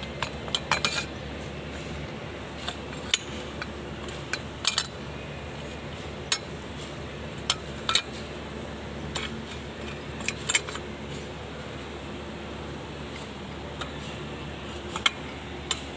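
Irregular sharp metallic clinks and taps as the steel propeller shaft and its coupling are handled and fitted on an L1-28 tractor, over a steady low hum.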